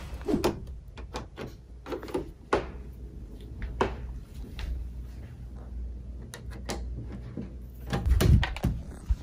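A door's lever handle is turned and the door is opened, with scattered clicks and knocks of handling. A louder thump comes about eight seconds in.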